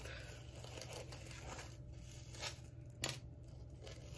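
Faint handling noise of hands working a lace wig and a small accessory, with a few light ticks.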